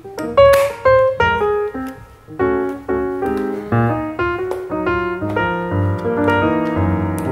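Background piano music: single notes struck one after another, becoming fuller with overlapping, held notes in the second half.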